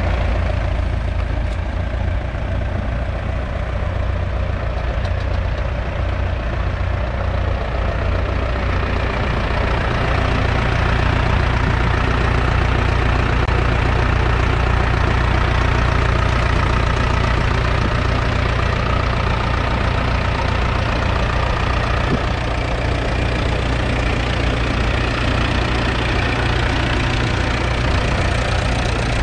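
McCormick International B414 2.5-litre four-cylinder diesel tractor engine idling steadily, getting slightly louder about ten seconds in.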